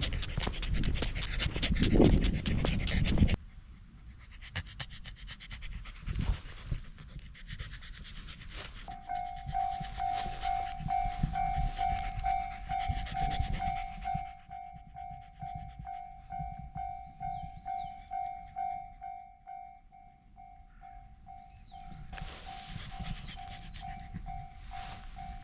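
A corgi panting, with a loud rushing noise for the first few seconds. About nine seconds in, a Japanese railroad crossing alarm starts ringing a single steady electronic tone about twice a second, and it keeps on.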